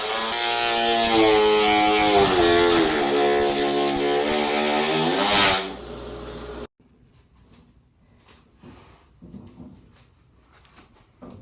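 SIP-panel milling machine's electric motor running, its pitch sliding up and down as the load changes, then cutting off abruptly about two-thirds of the way through. Faint clicks and handling noises follow.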